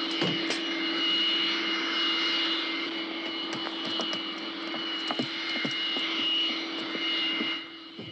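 Jet airliner engines running at idle: a steady high whine over a low hum and rushing noise, with a few faint knocks. The sound drops away abruptly near the end.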